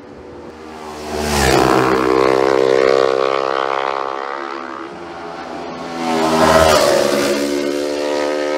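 Supertwin-class racing motorcycles passing at full speed on the road course, two loud passes: the engine note swells to a peak about a second in, eases off, then swells again about six seconds in.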